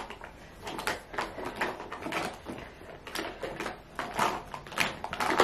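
Rummaging through a makeup bag: irregular light clicks, knocks and clatter of small makeup containers and brushes being moved about.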